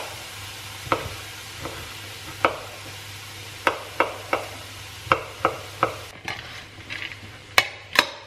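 Kitchen knife slicing small gherkins (cornichons) on a wooden cutting board: sharp, irregular taps one or two a second, over the steady sizzle of bacon strips frying in a pan. The sizzle drops out about six seconds in, and a few louder knocks follow near the end.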